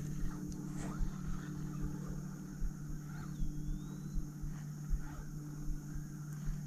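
Small boat motor running steadily with a constant low hum, with low gusty thumps of wind on the microphone underneath. A short high chirp, likely a bird, sounds about three seconds in.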